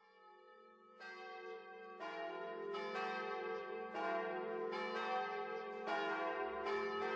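Church bells ringing, a new stroke roughly once a second, each ringing on under the next. They grow louder over the first two seconds.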